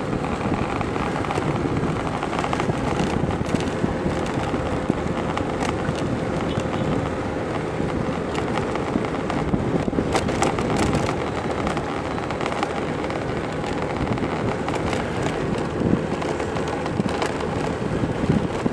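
Steady noise of riding along a paved street in traffic, with wind on the microphone and scattered crackles.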